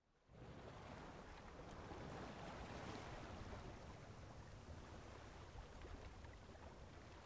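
Faint, steady outdoor ambience: an even wash of noise with a low rumble underneath, fading in within the first half second.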